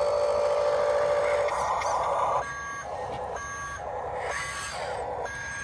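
Electronic sound effects from a Huina radio-controlled construction toy's speaker: a steady buzzing engine-sound loop, which about two seconds in gives way to a reversing beeper sounding about once a second.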